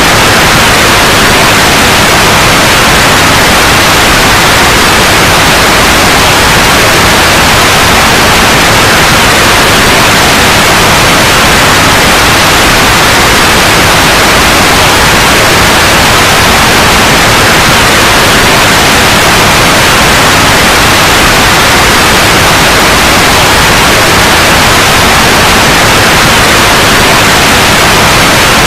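Loud, steady white noise, an even hiss with no change.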